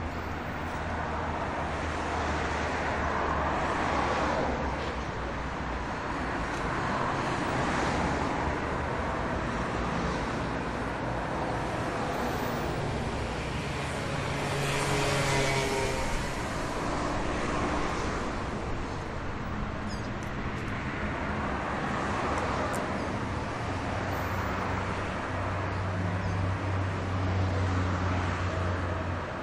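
City street traffic: cars and buses driving by over a continuous hum of engines. The noise of passing vehicles swells and fades every few seconds, and steady engine drones come and go beneath it.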